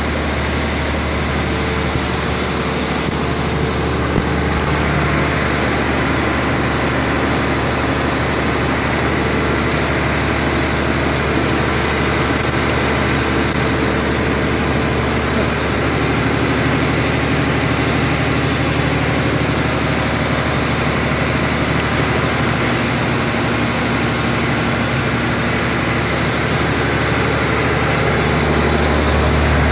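Wirtgen 1000C cold milling machine's diesel engine running steadily under a constant low hum, with a high hiss that grows stronger about four seconds in.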